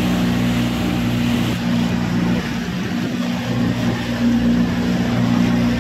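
Boat engine running at a steady pitch: a low drone with a constant hiss over it.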